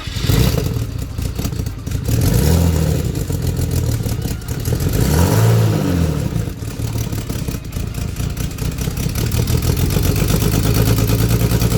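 BMW E36 328is 2.8-litre straight-six starting up for the first time after a cylinder-head rebuild. It catches, is revved up and back down twice, then settles into a steady idle.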